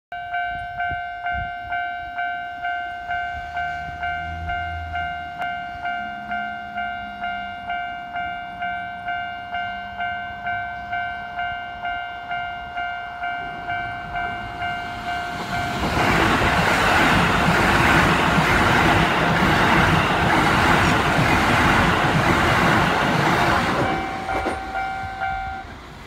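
Japanese level-crossing warning bell ringing in an even, repeating ding-ding. About sixteen seconds in, an eight-car Toei 5500 series electric train passes over the crossing, loud enough to drown the bell for about eight seconds. The bell is heard again briefly near the end, then stops.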